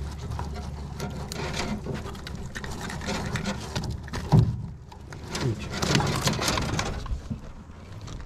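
Handling noise of a fish being worked out of a mesh landing net: irregular rustling and small clicks, with one dull thump about four and a half seconds in.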